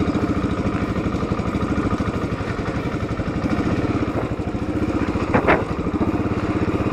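Royal Enfield Classic 500's air-cooled single-cylinder engine running at low revs with a steady, even beat while the bike rides down a muddy dirt track. A short, sharp louder sound cuts in about five and a half seconds in.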